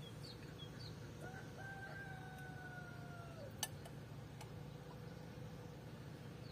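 A rooster crowing once, faint: one held call of about two seconds that begins about a second in and drops at its end. A single sharp click follows just after, and a few small bird chirps come near the start.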